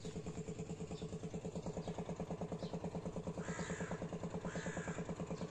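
An engine idling steadily with an even, rapid pulse of about ten beats a second. A crow caws twice in the middle.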